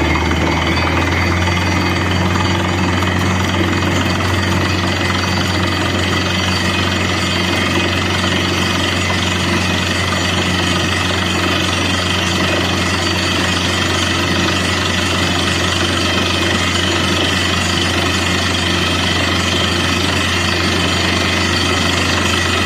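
Borewell drilling rig at work: its engine and air compressor run steadily under the hammering of the drill boring into the ground.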